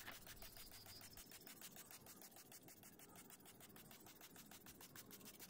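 Near silence: faint background tone only.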